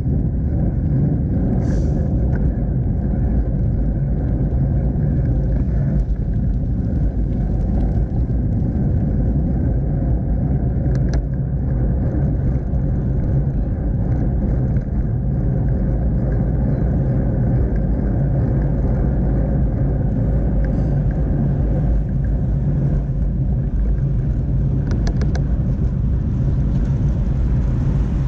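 Steady low rumble of a bicycle ride picked up by a camera mounted on the bike, with a few brief clicks or rattles along the way.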